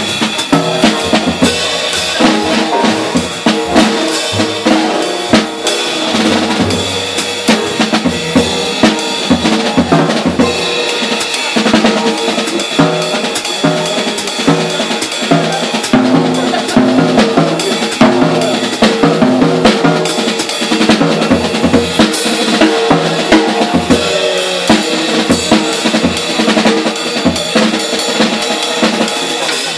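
Jazz drum kit played busily and loudly, with snare, bass drum, rimshots and ride cymbal, over an upright double bass in a small live hard-bop group.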